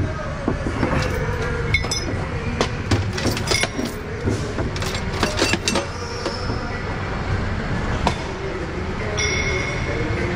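Metal clinking and rattling of tie-down chains and hardware as ratchet straps are pulled out of a flatbed truck's side toolbox, with a dense run of clinks in the first six seconds. A steady low mechanical rumble runs underneath.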